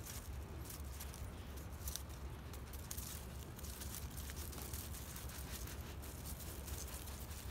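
Dry leaf crinkling and scraping on rough pavement as a cat paws and bites at it, in irregular small crackles, over a low steady rumble.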